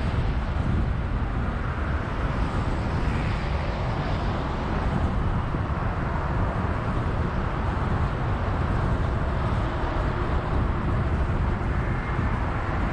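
Car driving on an expressway at about 60 km/h: a steady, low road and tyre rumble with traffic noise.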